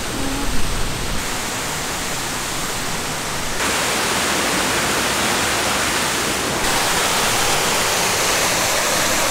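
Steady rush of running water from a rock waterfall water feature, a hiss without rhythm that steps up louder twice.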